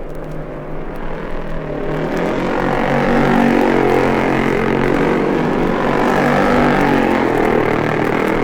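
1950s racing motorcycles passing at speed, their engines getting louder about two seconds in and staying loud, heard from a vinyl record.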